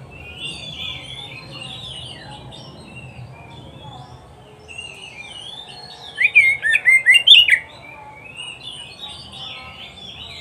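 Oriental magpie-robin singing a continuous run of varied, chattering and twittering phrases, with a loud burst of sharp, sliding whistled notes a little past the middle.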